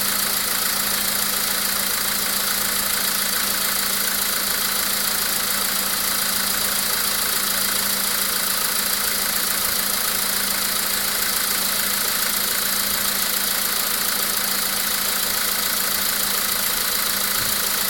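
A VW Polo sedan's 1.6-litre CFNA four-cylinder petrol engine idling steadily after a cold start, with the knock from the engine that this engine is known for when cold.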